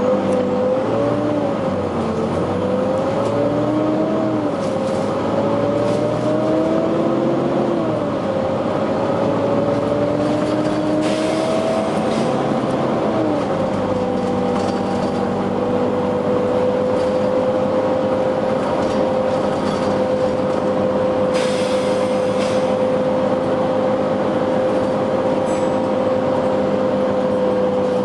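Volvo B9TL double-decker bus running, with a whining tone that rises and falls for the first half and then holds steady over a low engine hum. Two brief bursts of hiss from the bus's air system come a little before halfway and about three-quarters through.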